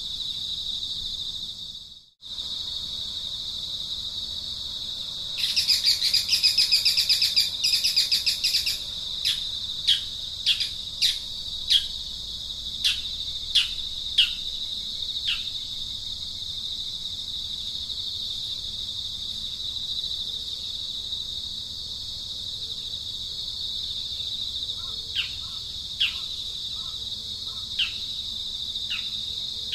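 Steady high-pitched drone of insects, broken by bird calls: a loud, rapid pulsing call for about three seconds, then a string of short falling chirps, and a few more chirps near the end. The sound cuts out for a moment about two seconds in.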